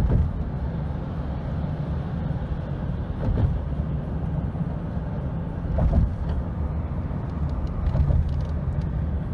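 Steady low rumble of a moving vehicle, swelling slightly a few times.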